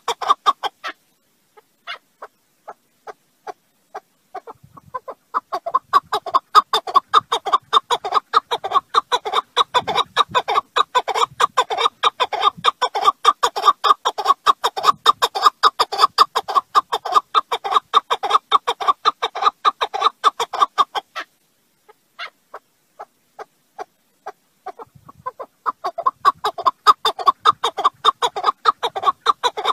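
Partridge calling: a fast run of short clucking chuk notes, several a second, in long bouts broken by pauses of a few seconds shortly after the start and again about two-thirds of the way through.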